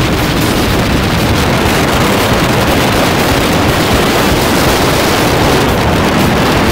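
Side-by-side UTV driving fast on a dirt track: a loud, steady rush of wind on the vehicle-mounted microphone, with the vehicle's engine and tyres underneath.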